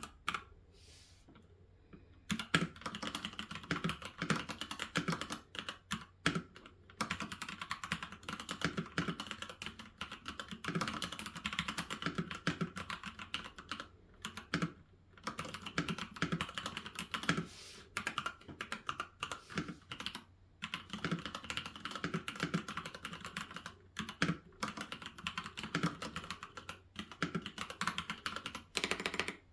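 Typing on a computer keyboard: quick, steady runs of key clicks, broken by short pauses. It starts about two seconds in.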